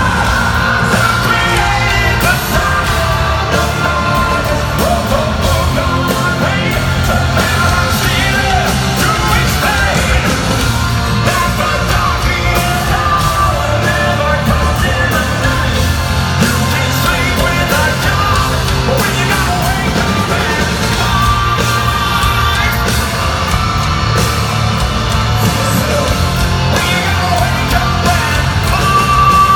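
Hard rock band playing live at full volume: distorted electric guitars, bass and drums, with yelled, sung vocals.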